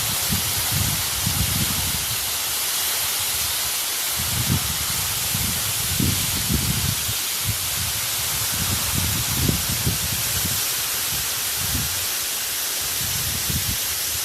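Waterfall: a steady rush of falling water, with uneven low rumbling underneath.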